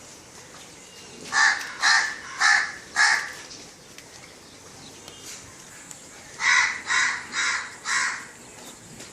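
A bird giving two runs of four loud, harsh calls, about half a second apart, the second run about five seconds after the first.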